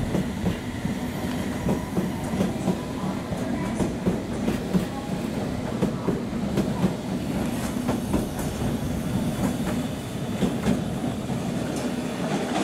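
London Underground S Stock train running past the platform, its wheels clacking irregularly over rail joints above a steady low hum.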